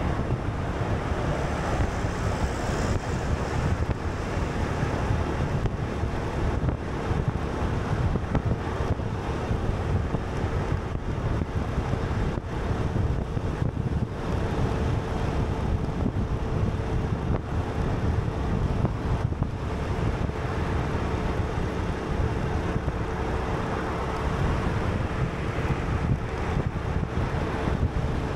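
Steady wind buffeting the microphone over the low rumble of a moving vehicle, with a faint steady hum underneath.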